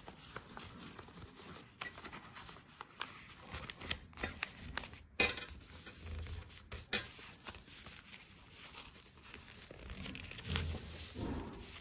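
A sheet of ruled notebook paper being folded and creased by hand into a paper boat: faint, irregular rustling and crinkling with short crackles.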